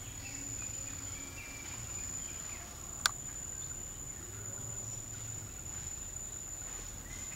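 Steady, high-pitched, unbroken insect trill. A single sharp click sounds about three seconds in.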